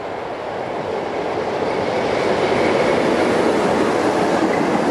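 Freight train passing close: an EU07 electric locomotive goes by, followed by a long rake of open freight wagons, the wheels rumbling on the rails. The sound grows louder over the first two seconds, then holds steady.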